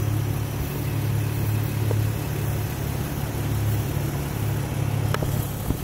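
Toyota FJ Cruiser's V6 engine idling steadily, a low even hum, with a couple of short clicks near the end.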